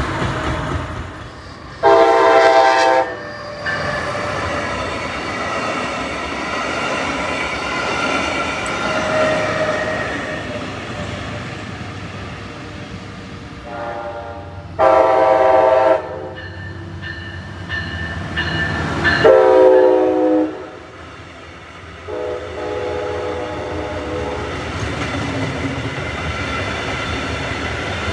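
Brightline passenger trains passing at grade crossings: the train horn sounds several loud, chord-like blasts, each about one to two seconds long, over the steady rumble of wheels on the rails.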